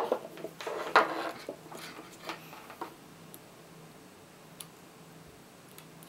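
Light knocks, clicks and rustling as cylindrical lithium-ion cells are picked up and set down on a table and multimeter probe leads are handled, mostly in the first three seconds, the loudest knock right at the start. After that only a faint steady hum and a couple of small ticks.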